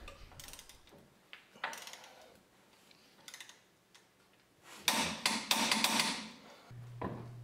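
Torque wrench ratcheting on a front strut's lower mounting nut as it is tightened to 130 foot-pounds. A few faint clicks, then about five seconds in a quick run of sharp metallic clicks lasting about a second and a half.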